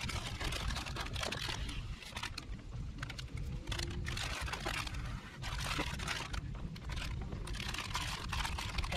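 Small scraper working up and lifting sticky butyl tape sealant: irregular scratchy scraping and crackly ticks over a steady low rumble.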